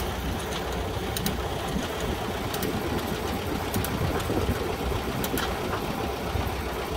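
An engine running steadily at idle with a fast, even clatter, and a few light clicks over it.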